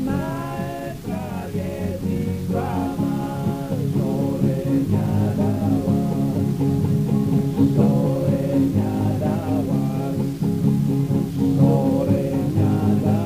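A song plays as background music: a voice singing over guitar accompaniment.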